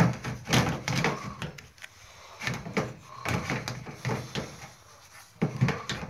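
Bosch front-load washer's plastic drain pump being pushed and twisted into its housing: an irregular run of plastic knocks, clunks and scrapes as it is worked into place.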